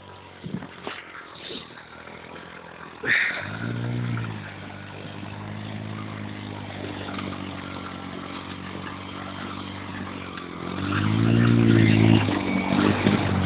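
The small engine of a Linhai Joker 50cc quad starts abruptly about three seconds in and revs briefly. It then runs steadily and is revved harder again near the end, with the quad bogged in deep snow.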